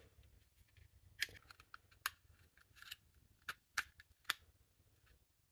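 Faint small plastic clicks and taps from handling the parts of a flashlight's black plastic wireless charging case as it is fitted back together: a handful of separate sharp clicks with quiet between them.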